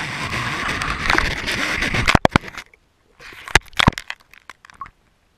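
Handling noise from a GoPro in its housing as it is jostled in an ice-fishing hole: about two and a half seconds of loud, crackling rush, then a run of sharp knocks and clicks that die away about five seconds in.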